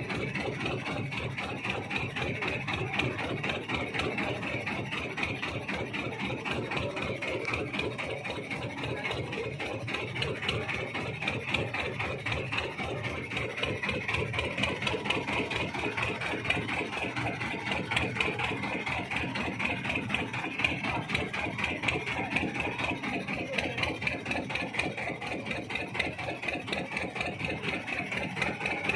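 An engine running steadily at an even speed, a continuous rapid chugging with no change in pace.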